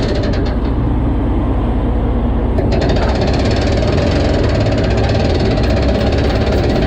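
Boat's anchor winch running loudly, hauling in the anchor rope and then the chain, with a steady, fast rattling drone.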